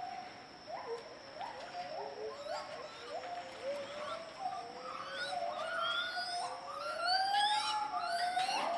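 Gibbons singing: a series of rising, whooping notes that grow longer and louder toward the end, with more than one voice overlapping.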